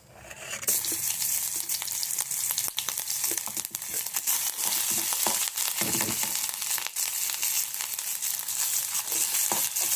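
Chopped ginger frying in hot desi ghee in a kadhai. The sizzle with scattered crackles starts suddenly about half a second in, as the ginger goes into the pan, then holds steady.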